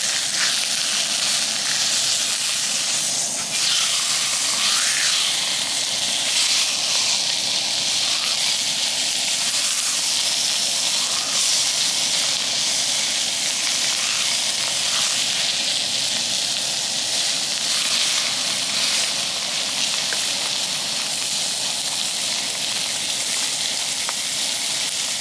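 Chicken thigh frying on a hot iron griddle plate: a steady, high sizzle of fat and juices, with the gas single burner running beneath.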